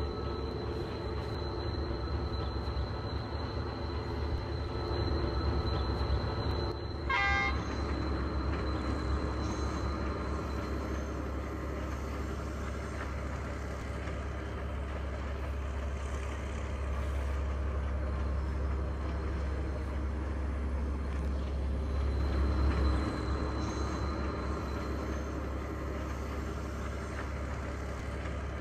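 Sri Lanka Railways Class S14 diesel multiple unit climbing a steep grade, its diesel engine running with a steady low hum. A short horn toot sounds about seven seconds in.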